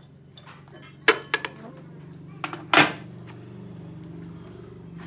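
Metal clanks from a large toothed gear and chuck key being taken off a lathe chuck: a few sharp clinks about a second in, then a louder clank near the middle. A steady low machine hum runs underneath.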